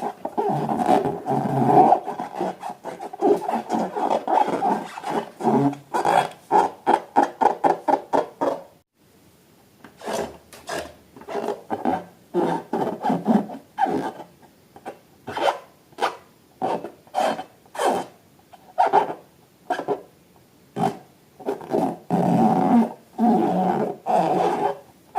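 Rubber balloons being rubbed and squeezed, making rough squeaky rubbing strokes. A fast run of strokes stops for about a second around a third of the way in, then continues as separate short strokes.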